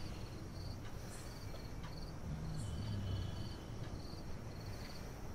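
Crickets chirping, short pulsed chirps repeating about twice a second, over a low steady rumble of room noise.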